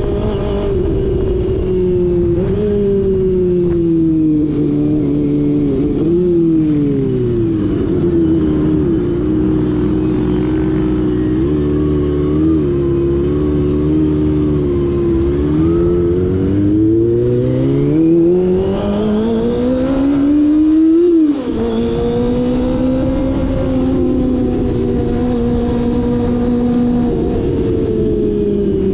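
Kawasaki ZX-25R's inline-four engine through an SC Project exhaust, under way. The pitch falls as the bike slows about a fifth in and runs low for a while, then climbs steeply under acceleration. It drops sharply at a gear change about two-thirds in, then holds and eases off near the end.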